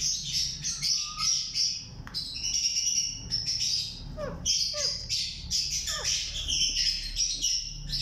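Alexandrine parakeets chirping and chattering steadily while they feed, with a few sharp calls that drop in pitch about halfway through.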